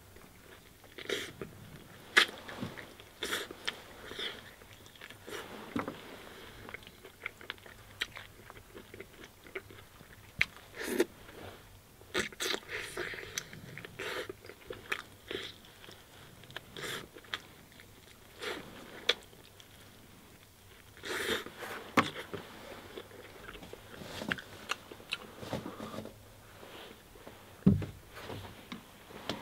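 Close-up eating sounds: a person biting into and chewing roast chicken, with irregular crunches and sharp smacking clicks throughout. There is a louder, lower puff near the end.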